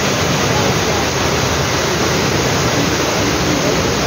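Heavy rain pouring down in a steady, dense hiss.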